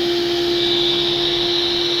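SCM sliding-table circular saw running at speed with its dust extraction on, the blade spinning free before the cut: a steady hum over a constant hiss.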